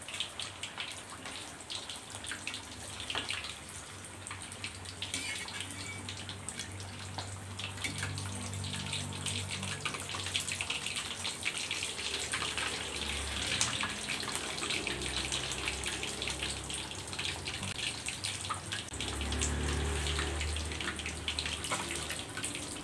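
Rice- and sago-flour-battered catfish deep-frying in hot oil in a wok: a steady, dense crackling sizzle of many fine pops, the batter being fried until dry and crisp.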